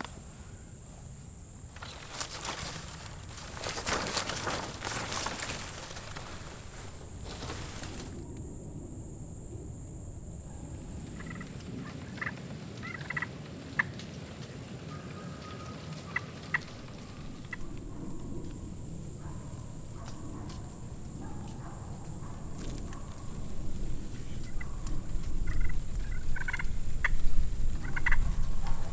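Osceola wild turkey gobblers gobbling in short bursts around the middle and again near the end, over rushing wind or rustling noise.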